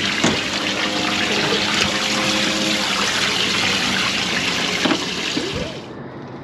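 Water rushing and splashing in a boat's livewell as a catfish is put in and swims; the rush stops abruptly near the end.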